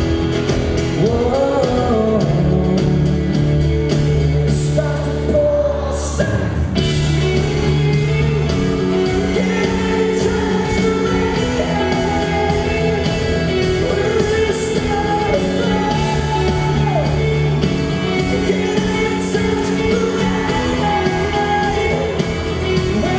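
Live pop-rock band performance: a male singer sings over strummed acoustic guitar and the band, with held low notes underneath.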